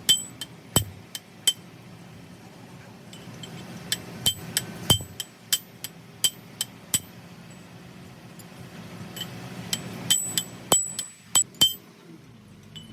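Hammer blows on steel, sharp metal-on-metal taps each with a short bright ring, coming irregularly in several runs during hands-on truck gearbox work.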